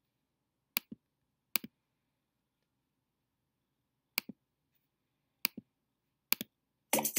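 Computer mouse clicking five times, each click a quick press-and-release pair, over faint room tone. Music starts just before the end.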